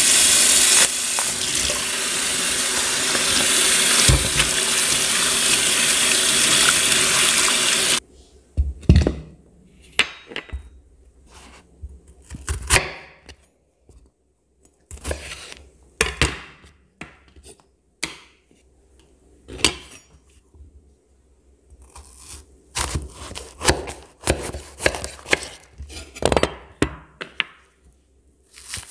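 Tap water runs into a stainless-steel sink for about eight seconds and then cuts off. After that comes a knife cutting a bitter melon (ampalaya) on a wooden cutting board: scattered knocks and short scrapes, with a quicker run of cuts near the end.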